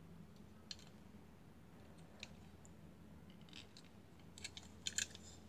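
Faint small clicks and taps of a die-cast Hot Wheels '57 Chevy toy car being handled and turned over in the fingers, a few scattered at first and then a quick cluster, the loudest, near the end. A steady low hum lies underneath.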